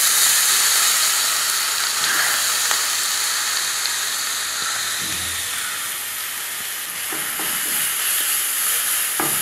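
Grated carrot sizzling in hot ghee in a pan: a strong, steady hiss that eases off slowly. A spatula stirs it near the end.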